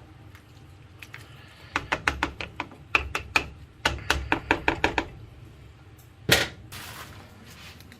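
A utensil knocking against a metal soup pot: a quick run of ringing clanks lasting about three seconds, then one louder knock near the end.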